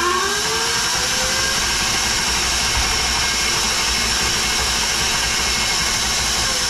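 KitchenAid stand mixer's electric motor and gearing running: it speeds up over the first second or so, then whirs steadily. It runs with no bumping around, its repaired head screwed back nice and tight.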